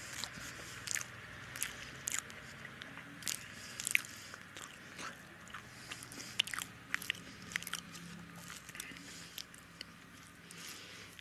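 Close-miked chewing of a mouthful of rice and fish curry: wet mouth smacks and sharp clicks at an irregular pace of one to three a second, some louder than others.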